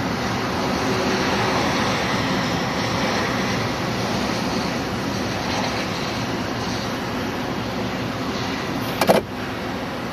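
Steady road and engine noise of a car being driven, heard from inside, with a single sharp knock about nine seconds in.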